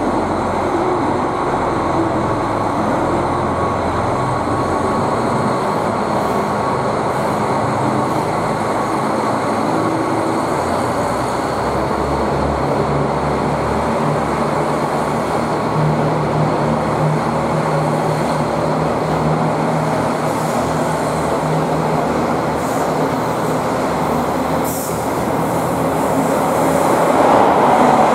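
JR Hokkaido KiHa 261-5000 series diesel multiple unit running through the station, a steady diesel engine hum over wheel-on-rail noise, growing louder near the end.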